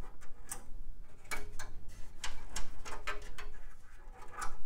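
Internal computer cables and their plastic connectors being pulled out of a sheet-metal PC case, giving a run of irregular clicks, taps and rattles.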